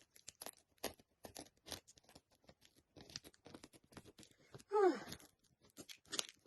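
Parcel packaging being opened by hand: a run of short crackles, snips and tearing of paper and tape. About five seconds in there is a brief falling vocal sound.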